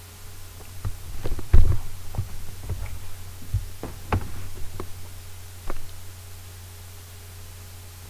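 A run of irregular knocks and thumps, about a dozen over five seconds and loudest about a second and a half in, over a steady low hum.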